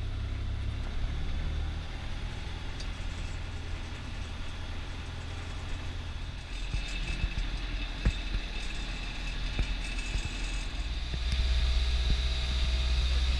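Fishing boat's engine running steadily with a low rumble, getting louder about eleven seconds in. A few knocks are heard on deck.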